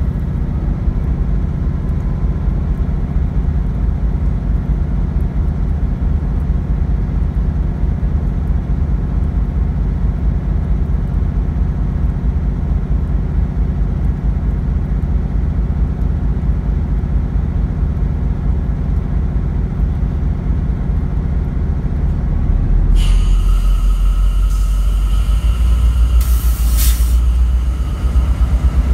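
Diesel locomotive idling close by with a heavy, steady low rumble. About 23 seconds in the sound grows a little and a higher whine joins it, and a short burst of air hiss comes about three seconds later.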